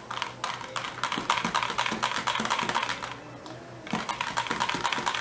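Rapid, irregular clicking and tapping of a utensil stirring colourant into cold-process soap batter in a container, with a short pause a little past the middle.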